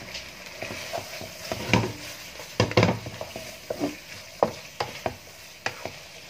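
Spatula stirring carrot slices and long beans through sizzling sambal in a wok, with irregular knocks and scrapes of the spatula against the pan over a steady sizzle; the loudest knocks come about two to three seconds in.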